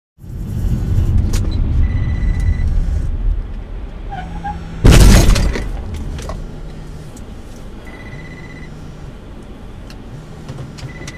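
Road noise inside a moving car, then a single loud crash of a collision about five seconds in, fading away after it. A short electronic beep sounds three times.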